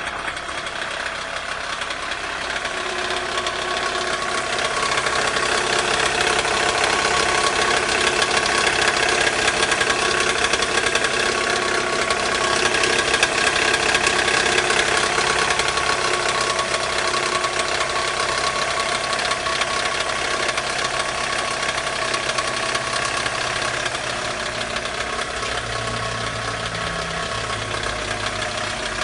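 Toyota Estima's 2.4-litre 2AZ-FE four-cylinder engine idling, with a steady mechanical noise carrying several high steady tones. The noise is the sign of a failing balance shaft.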